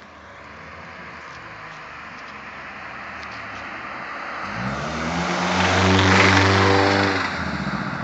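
Car engine growing steadily louder as the car draws near, then revving up with a rising pitch about halfway through, loudest near the end before easing off.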